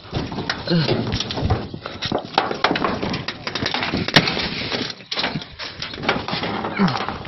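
Close, irregular knocking and rattling throughout, with a few short fragments of people's voices.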